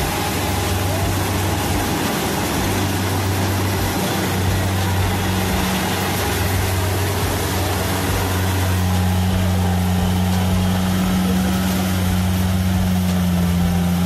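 Kubota DC70 rice combine harvester running under load as it cuts and threshes standing rice: a steady diesel engine drone with a noisy rush of machinery over it.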